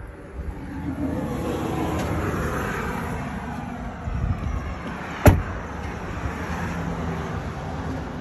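An SUV door shutting with one sharp thump about five seconds in, over a steady rushing noise.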